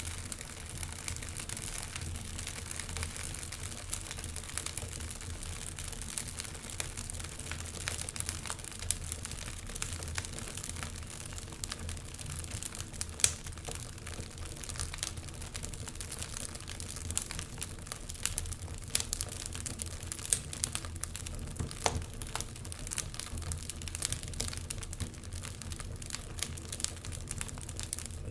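Wood fire crackling and popping steadily, with frequent small snaps and a louder pop about 13 seconds in, over a low rumble.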